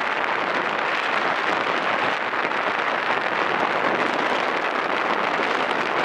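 Steady rushing wind and road noise of a motorcycle ride at speed, with no clear engine note standing out.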